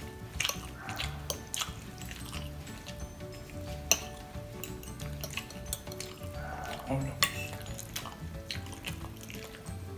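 Metal fork clinking and scraping against a glass baking dish while twirling instant noodles, with sharp clinks about 4 and 7 seconds in, over background music.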